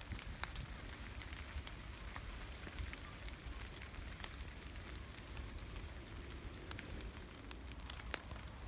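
Gentle forest rain: a steady soft hiss of falling rain with many separate drops ticking sharply here and there.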